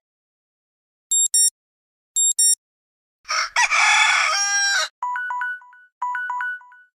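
Samsung Galaxy Mini phone ringtone sounds: two quick pairs of high electronic beeps, then a rooster crowing for about a second and a half, then two short groups of electronic notes.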